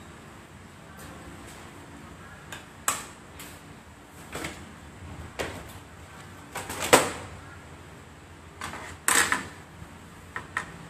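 Objects being handled and set down: a string of sharp clicks and knocks at irregular times, the loudest about two-thirds of the way through.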